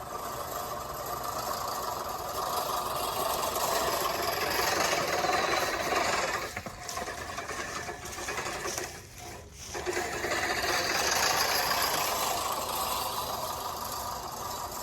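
American push reel lawn mower cutting grass, its spinning reel blades whirring steadily, with two brief lulls about six and nine seconds in.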